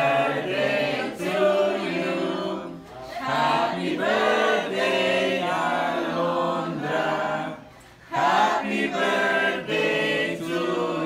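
A group of people singing a birthday song together, unaccompanied, with short breaks between phrases about three and eight seconds in.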